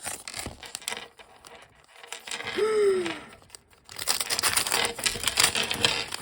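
Paper packaging being torn open and crinkled by hand: scattered rustles at first, then dense ripping and crinkling in the last two seconds. A short falling vocal "ooh" sounds about two and a half seconds in.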